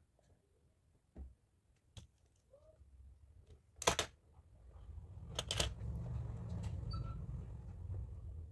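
Hands working on a cardboard box: a few sharp taps and knocks, the loudest about four seconds in and two close together about a second and a half later, then a low rubbing sound that runs on to the end.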